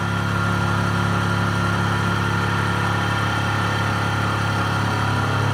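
Mini mill driven by a 900 W brushless servo motor, running steadily at about 2800 motor rpm with a 3-inch fly cutter in the spindle: an even hum with a thin high whine.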